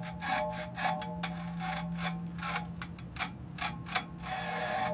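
Quick, irregular rasping strokes, about three or four a second, like hand scraping or filing on metal, over a steady low hum.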